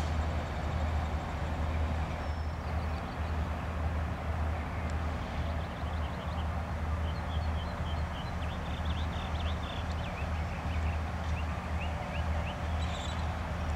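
Passenger train hauled by an EMD GP7 diesel moving away, a steady low rumble. Birds chirp over it, a run of short, quick rising notes through the middle and latter part.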